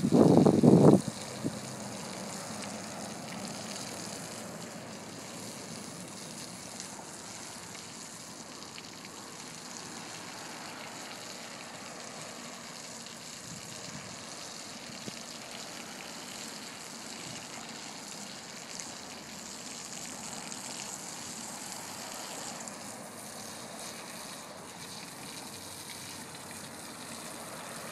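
Garden hose spraying water onto soaked, soapy rugs: a steady splashing hiss, with a louder rush in the first second.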